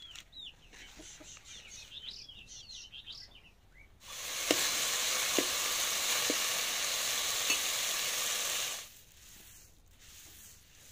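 Chicks cheeping faintly for the first few seconds, then food frying in a hot pan: a loud, steady sizzle with a few pops for about five seconds, which cuts off suddenly.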